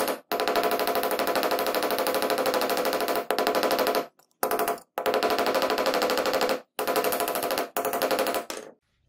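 Small hammer tapping rapidly on a brass bolster against a steel anvil block to shape and seat it on a knife tang: quick, even metallic strikes in runs of a few seconds with short pauses, stopping just before the end.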